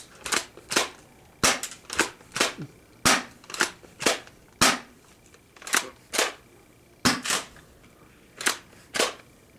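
Spring-powered airsoft pump shotgun being pumped and fired over and over: a string of sharp clacks and snaps, often two close together, about one to two a second with short pauses between.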